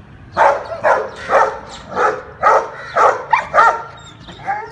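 Rottweiler barking in a quick run of about eight barks, roughly two a second, then a short whine near the end.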